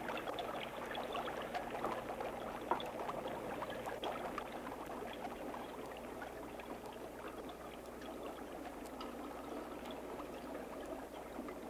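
Liquid bubbling and gurgling steadily in laboratory glassware, a dense crackle of small pops that eases slightly in the second half, with one sharper pop about three seconds in.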